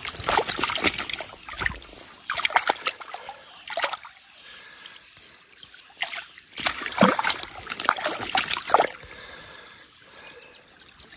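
Water splashing in irregular bursts as a small rainbow trout is handled and unhooked in a landing net held in the creek, the heaviest splashing about six to nine seconds in, over the steady trickle of the flowing stream.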